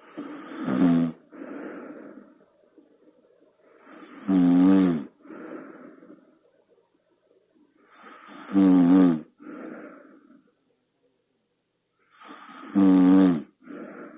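A person snoring in their sleep: four snores about four seconds apart, each a loud rattling inhale followed by a softer exhale.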